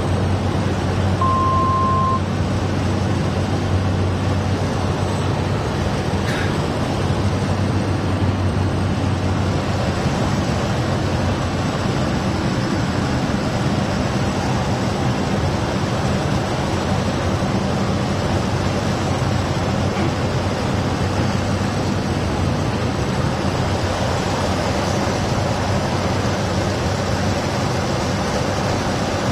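Cessna 208 Caravan's PT6 turboprop engine and propeller droning steadily, heard inside the cockpit with air rushing past during the landing approach. A short beep sounds about a second in.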